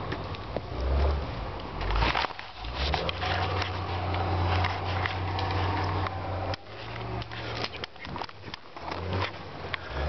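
Footsteps crunching and crackling through dry pine slash and needles, twigs snapping underfoot, over a steady low engine hum that drops away for a few seconds in places.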